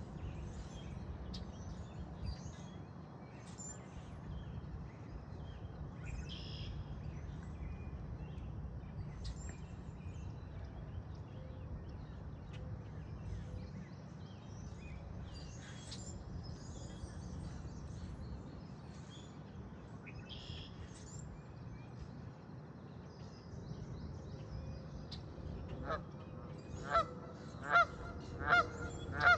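Canada goose honking loudly near the end, one honk about every second. Before that there is only a steady low rumble with faint high chirps.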